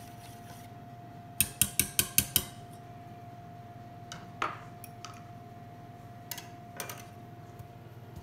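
A whisk tapped sharply six times in quick succession against a stainless-steel mixing bowl, then a few lighter clinks of kitchen utensils on metal bowls, over a steady faint hum.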